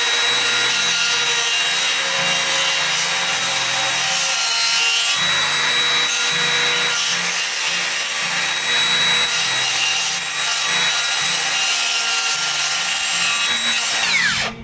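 Hand-held circular saw cutting lengthwise along a timber beam, its motor note holding steady under load. Near the end the saw is released and the motor pitch falls away as it winds down.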